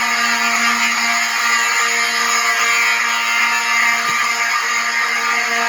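Several electronic fire alarm horns sounding together without a break, making a loud, steady, dense buzzing blare. The alarm system is in alarm with its notification appliances unsilenced.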